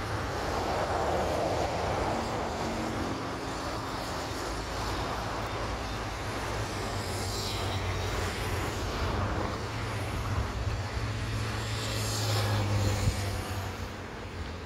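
Distant jet airliner on approach: a steady rushing engine noise with a low hum under it, mixed with road traffic hissing past twice.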